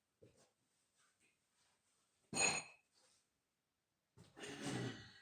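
Scattered metal-handling sounds in a workshop: a sharp metallic clink with a brief ring a little over two seconds in, and a longer, duller noise near the end.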